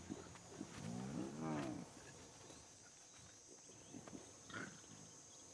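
Young lion giving one drawn-out vocal call about a second in, its pitch rising then falling, followed by a short breathy huff a few seconds later.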